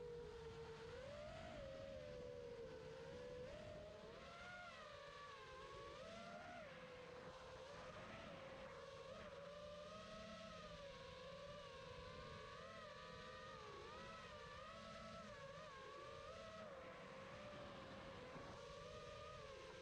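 Brushless motors and propellers of a 5-inch FPV quadcopter (F40 1950 kv motors) whining steadily, the pitch wavering up and down as the throttle changes.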